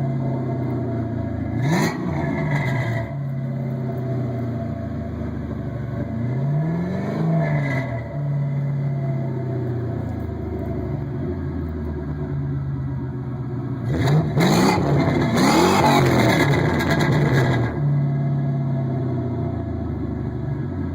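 Ford Mustang GT's 4.6-litre V8 idling through dual Thrush welded chambered mufflers and revved three times. A short blip comes about two seconds in and a slower rise and fall around seven seconds. The longest and loudest rev is held from about fourteen to seventeen seconds before the engine drops back to idle.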